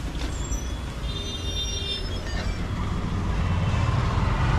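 Street traffic noise, a steady low rumble that grows louder as the shop door opens onto the road, with a brief high-pitched tone about a second in.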